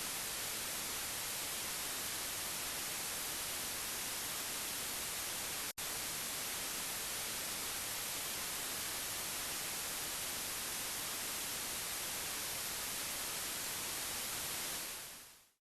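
Steady, even rushing of a waterfall at close range, broken once by a brief silent gap about six seconds in and fading out near the end.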